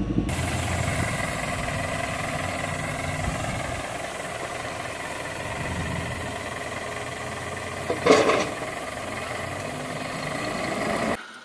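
Heavy diesel engines running steadily as a backhoe loader tows a semi truck that is sunk in soft ground. A short, loud burst of sound cuts across the engine about eight seconds in.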